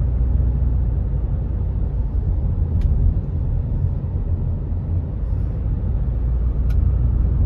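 Car on the move: a steady, low rumble of road and engine noise, with a couple of faint clicks.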